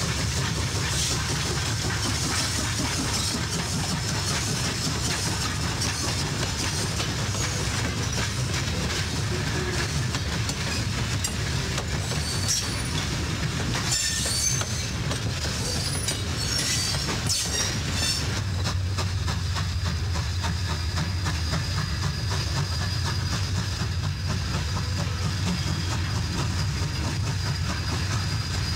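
Train behind a 1927 Baldwin 2-8-0 Consolidation steam locomotive rolling over track and switches: a steady low rumble with wheels clicking over the rail joints, and short high wheel squeals about halfway through.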